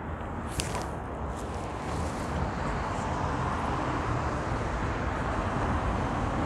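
Diesel engine and tyres of a MAN city bus approaching and pulling in to the stop, the steady rumble growing louder, with cars driving past close by.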